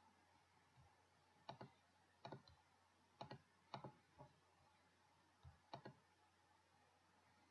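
Computer mouse button clicked about five times, each click a quick press-and-release pair of sharp ticks, over a very quiet background.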